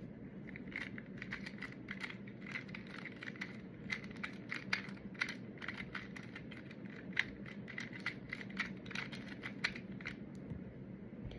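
A 2x2 Rubik's cube being turned fast by hand: a quick, irregular run of plastic clicks and clacks as the layers snap round, starting about a second in and stopping near the end, over a faint steady hum.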